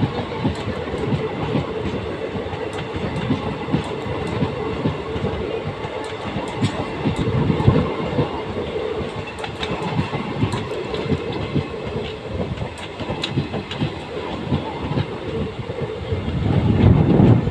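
Passenger train pulling into a station: a steady rumble with the wheels clicking over the rail joints, growing louder near the end.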